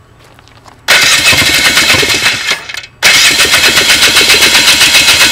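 Polaris ATV engine in two loud bursts of rapid, uneven firing, each about two seconds long, with a short break between. The uneven running is the fault behind the video's title, a misfire.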